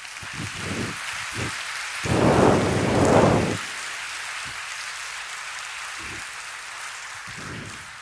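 Large audience applauding, louder for a second or so about two seconds in, then steady and tapering off near the end.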